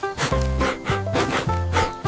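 Upbeat cartoon background music: held melody notes over a pulsing bass, with regular percussion hits about twice a second.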